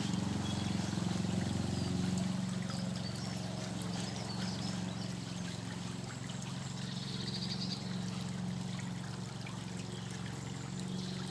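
Water trickling and flowing in a stream, over a steady low hum, with a couple of brief high chirps about seven and eleven seconds in.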